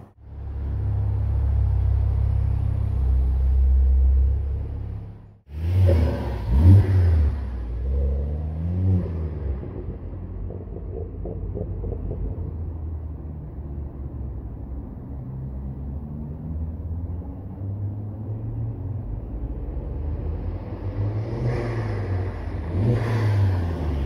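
Ford Focus ST225's turbocharged five-cylinder engine: a steady low drone for about five seconds, then after a cut, sharp throttle blips and a rising rev, settling into a steady run that swells as the car approaches and passes near the end.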